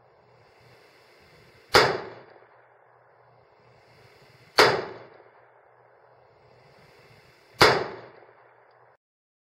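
AR-15 rifle shots: three sharp reports about three seconds apart, each trailing off briefly, over a faint steady background hiss and hum. The sound cuts off near the end.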